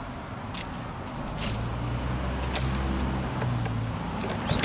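Small lawnmower engine being pull-started: a few short yanks, then a low, steady engine note catches about a second and a half in and keeps running.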